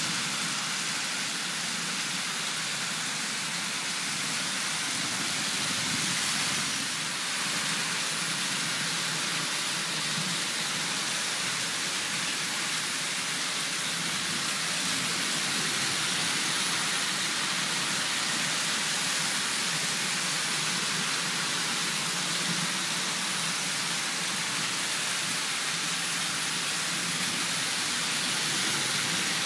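Several analog Märklin HO model trains running at once on metal three-rail track: a steady, even whirring rumble of their motors and wheels on the rails.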